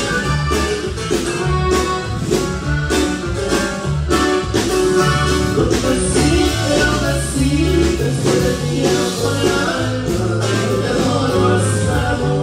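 Live norteño band music: accordion melody over a steady bass-and-drum beat, with a man singing.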